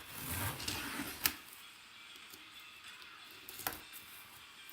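The sealed top of a box being ripped open by hand: a noisy tear lasting about a second that ends in a sharp snap, then a single light click a couple of seconds later.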